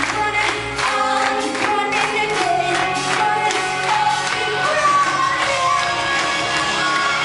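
Live rock band playing: a female lead vocal sung over electric guitars, bass and drums.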